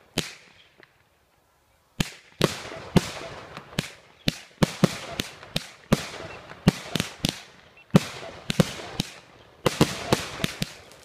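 Professional-grade fireworks going off. A single loud bang comes just after the start, then a pause, then a long run of loud bangs about two a second, each trailing off in an echo, coming faster near the end.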